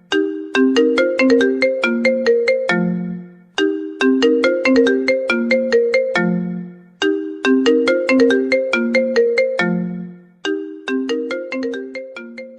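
Mobile phone ringtone melody: a short phrase of quick, crisply struck notes ending on a lower held note, repeated about every three and a half seconds.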